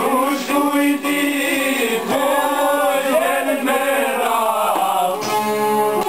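Men's voices singing an Albanian folk song over plucked çifteli and sharki, two-stringed long-necked lutes.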